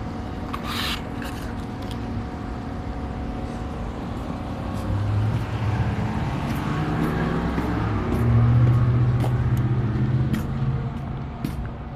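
A motor vehicle running, its low engine hum swelling between about five and ten seconds in, with scattered light clicks.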